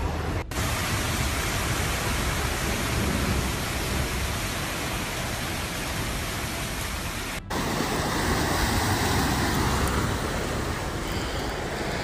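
Steady, even hiss of rain and rushing floodwater in flooded streets. It breaks off abruptly and resumes about half a second in and again about seven and a half seconds in.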